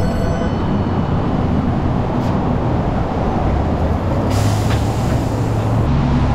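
Steady workshop background noise: a dense rushing sound over a low steady hum, with a brief high hiss about four seconds in.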